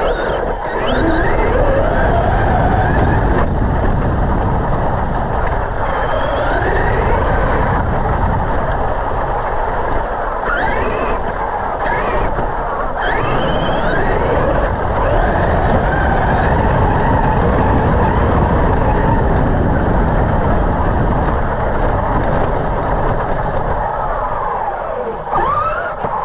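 Brushless electric motors of RC monster trucks whining and repeatedly rising in pitch as they accelerate, over a steady loud rush of noise.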